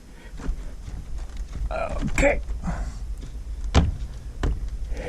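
Homemade latch on a chicken coop door being worked, a scraping squeak about two seconds in and two sharp clicks near the end; it is stiff and binding, which the builder expects to wear in with use.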